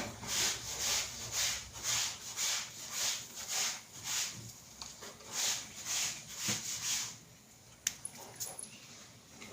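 A monkey coughing in quick breathy bursts, about two a second, stopping after about seven seconds; a single sharp click follows near the end.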